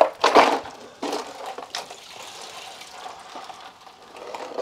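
A plastic perimeter gutter channel being pried back from a basement wall and footing by hand: a few sharp cracks and scrapes in the first second or two, then softer rustling and scraping.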